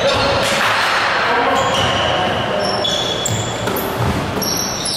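Basketball sneakers squeaking on a hardwood gym floor in short, high-pitched chirps at several different pitches, with a basketball bouncing and players' feet thudding underneath.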